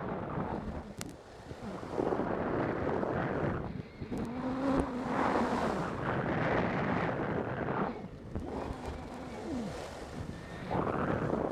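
Wind rushing over the microphone and skis carving on hard groomed snow at speed, the rushing swelling and fading with each turn every second or two.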